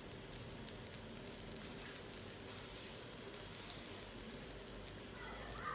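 Mawi batter cooking in a nonstick frying pan: a faint, steady sizzle with small scattered pops and crackles.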